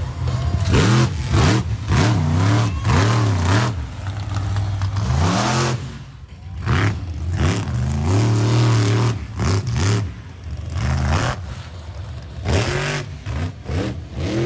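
Monster truck engine revving hard in repeated bursts, its pitch climbing and falling with each stab of the throttle, with sharp crackles between revs and a brief lull partway through.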